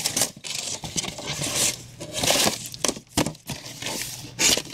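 A printed cardboard art box being folded together by hand: stiff cardboard panels and flaps scraping and rubbing in repeated strokes, with a few sharp knocks in the second half as the panels are pushed into place.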